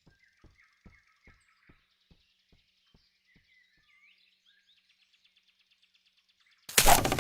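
Faint birdsong chirps and trills over a run of soft clicks that slow down and fade away, then a sudden loud burst of noise lasting about half a second near the end.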